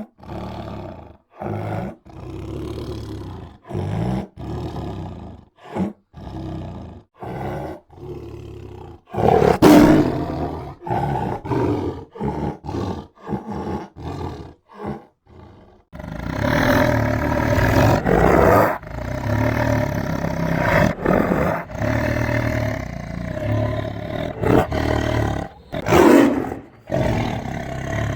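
Tiger roaring and growling. The first half is a run of short, separate growls with brief gaps and a louder roar about ten seconds in; from about sixteen seconds the roaring runs on without a break, with another loud roar near the end.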